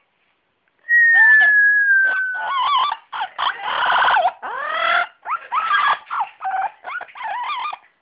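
A parrot gives one long whistle, falling slightly in pitch, about a second in. It follows with a quick run of chattering, squawking calls whose pitch bends up and down.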